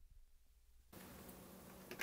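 Near silence, with faint room hum coming in about halfway through and a faint click near the end from a button pressed on a Sony TC-KA3ES cassette deck.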